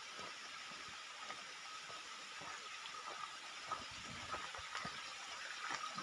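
Steady rush of flowing water from a mountain stream, with a few faint clicks and knocks scattered through it.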